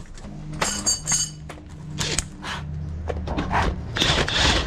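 Sharp metallic clicks and clinks of a hand spanner working the top mounting nut of a shock absorber as it is tightened. A low steady hum runs underneath, and near the end comes a short burst of louder, hissing noise.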